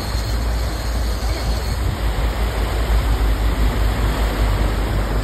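A sportfishing boat's engines running steadily at trolling speed, a low rumble under the rushing, churning water of its wake.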